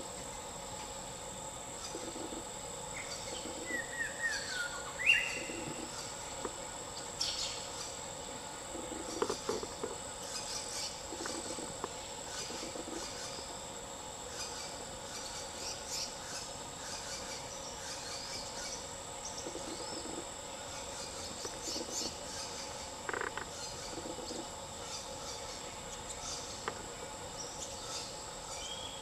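Forest insect chorus holding a steady, high continuous drone, with scattered bird calls, including a few quick falling chirps about four to five seconds in.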